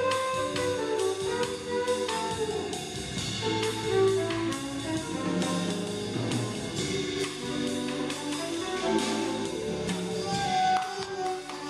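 Live jazz sextet playing: trombone in front, with an upright bass line and drum kit with cymbals underneath, in a group that also has trumpet, flute and vibraphone.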